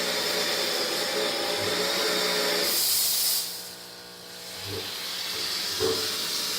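Espresso machine steam wand open and hissing. The hiss is strong for about three and a half seconds, falls away sharply, then builds again and holds steady.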